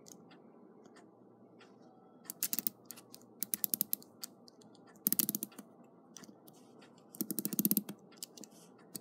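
Westclox America clock movement being wound by its key: four short bursts of rapid ratchet clicks, one for each turn of the key, as the mainspring is wound up.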